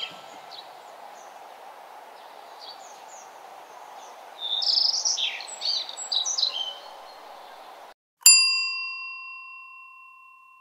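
Birds chirping in scattered short bursts over a steady hiss, busiest around the middle; the birdsong cuts off about eight seconds in and a single bright bell chime rings out and slowly fades.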